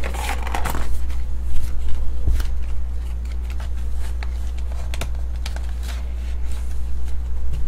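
Handling noise from a cardboard box being opened and a cased trading card being lifted out of its foam insert: a rustle of cardboard in the first second, then scattered light clicks and scrapes over a steady low hum.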